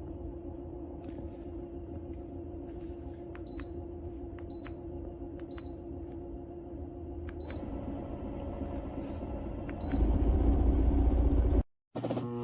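Pofart vibration plate's motor humming as it tries to drive the plate, which does not move: the machine is malfunctioning. Five short high beeps sound as buttons are pressed. About ten seconds in a much louder low rumble starts, then cuts off suddenly.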